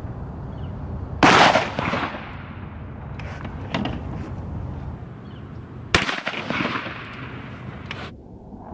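A 12-gauge shotgun fires a sub-calibre sabot slug on a hot 35-grain Longshot powder charge: one loud, sharp report about a second in that rings away over the next second. A second sharp bang follows about six seconds in, and the sound cuts off abruptly shortly before the end.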